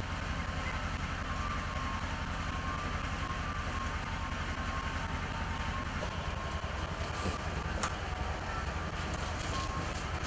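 Steady low rumble of an idling engine, with a few faint knocks between about six and eight seconds in.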